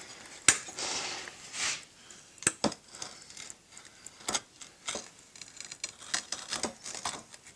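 Light handling noises from working a sand-casting mould and its flask: a string of irregular sharp taps and clicks with short scrapes of sand between them, the loudest tap about half a second in.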